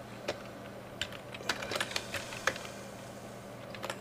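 Typing on a computer keyboard: an irregular run of keystrokes entering a short command, with a few louder taps about halfway through.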